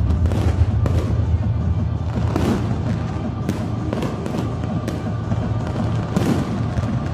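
Fireworks going off in quick succession, bangs and crackles several times a second, over loud music with a steady low bass.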